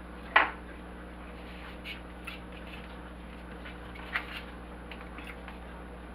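A sharp tap about half a second in, then a few faint clicks and rustles of a cut sandwich being picked up off a paper plate, over a steady low hum.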